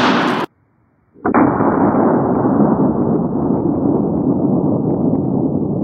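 Rifle blowing up: a sharp, loud blast at the very start. After a pause of nearly a second comes a long, muffled rushing noise that slowly grows duller over about five seconds.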